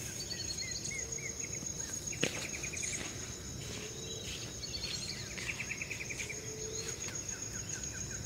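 Riverside ambience: a steady high insect buzz, with birds calling in runs of quick repeated notes and short whistles. A single sharp knock about two seconds in.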